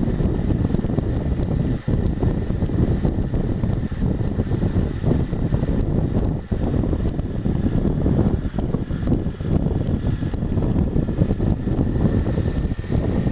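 Wind rushing and buffeting over a helmet-mounted action camera's microphone on a moving motorcycle, with the Honda Africa Twin CRF1000L's parallel-twin engine running underneath at low city speed.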